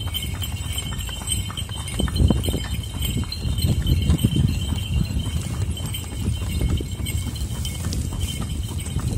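Horse's hooves clip-clopping unevenly on stone paving over a steady low rumble, with a faint steady high-pitched ringing.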